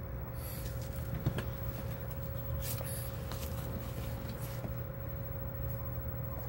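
A steady low hum with a faint constant tone above it, broken by a few light clicks and taps, the sharpest about a second in.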